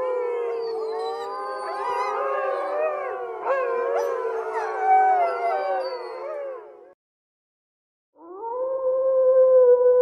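Wolves howling in chorus, many long overlapping howls rising and falling in pitch, cutting off about seven seconds in. After a second's pause, a single wolf starts one long, steady howl near the end.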